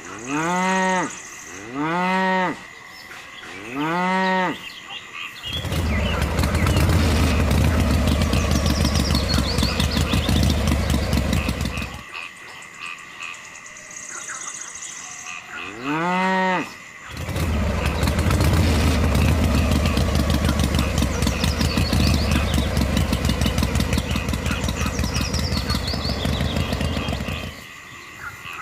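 A cow mooing, three short rising-and-falling moos a couple of seconds apart, then another near the middle. Between and after them, a loud steady low motor-like rumble runs for several seconds at a time.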